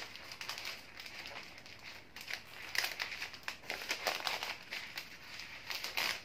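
Sheets of patterned wrapping paper rustling and crinkling as hands fold and gather them around a bouquet's stems, in uneven bursts.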